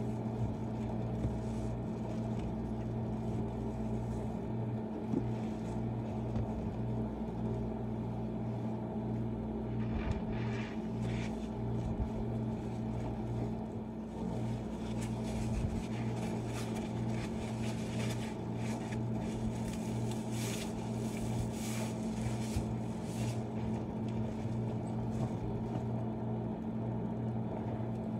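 A wet sponge squeezed and worked by rubber-gloved hands in a basin of thick suds, giving soft, irregular squelching and foam crackle, heard most from about ten seconds in. Under it runs a steady low hum, the loudest sound throughout.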